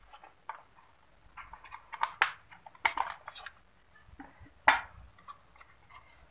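Hard plastic housing of a Creative A235 speaker being opened and handled: scattered clicks, scrapes and light knocks of plastic and wiring, the loudest a sharp knock a little before five seconds in.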